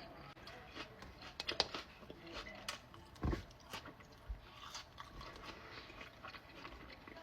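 A person chewing and biting food, with irregular crunches and a louder low thump about three seconds in.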